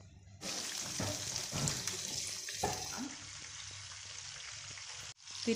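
A whole chicken frying in hot oil in a wok: the sizzle starts suddenly about half a second in as it goes into the oil, then carries on as a steady, slightly softer sizzle from about three seconds in.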